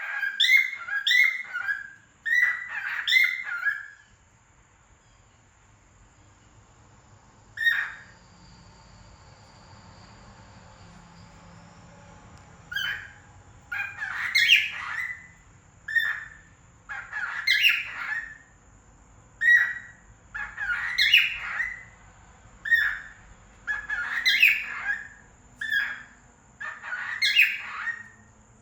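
Cockatiel singing in chirpy, warbling whistled phrases. A quick run of phrases opens it, followed by a lull of several seconds broken by a single call. After that come short phrases repeated about every second and a half.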